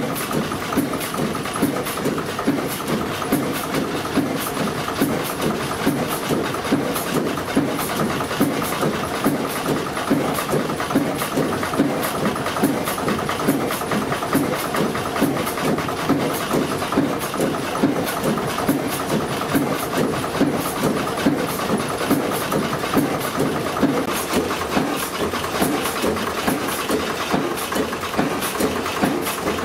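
Vintage Gardner stationary engine running slowly and steadily, each firing stroke a regular thump at roughly one and a half beats a second, with a clattering mechanical rattle over it.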